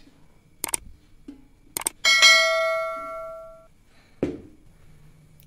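Subscribe-button animation sound effects: a couple of sharp mouse clicks, then a bell chime about two seconds in that rings on and fades over a second and a half. A short thump follows about four seconds in.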